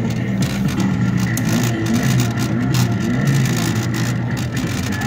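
A Lightning McQueen kiddie ride's speaker playing a recorded race-car engine revving sound effect, rising and falling in pitch.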